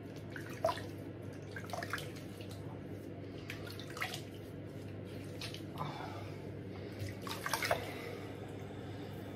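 Water splashing as hands scoop water over the face at a bathroom sink, a few irregular splashes with the strongest near the end: a face rinse between shaving passes.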